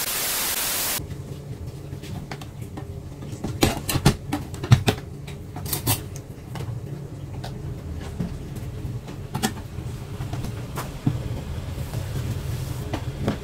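A loud burst of TV-static hiss for about the first second. It gives way to a steady low hum with scattered knocks and clatter of objects being handled in a small room.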